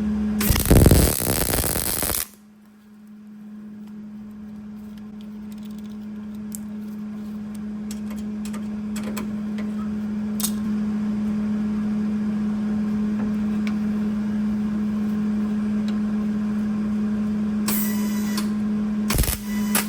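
MIG welder laying plug welds: a crackling burst of arc about two seconds long near the start and shorter bursts near the end, over a steady electrical hum, with scattered light clicks between.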